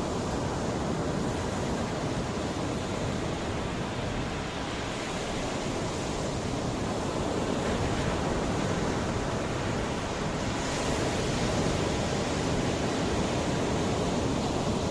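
Mediterranean sea waves washing onto the shore: a steady rushing surf that swells gently about five seconds in and again after ten seconds.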